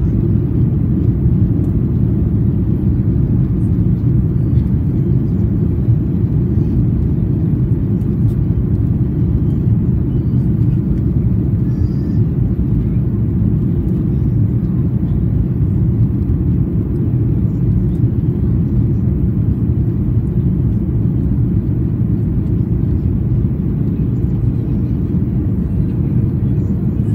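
Steady low drone inside the cabin of a Boeing 737-800 in flight: the CFM56-7B engines and the airflow over the fuselage, heard from a window seat over the wing. It holds even throughout.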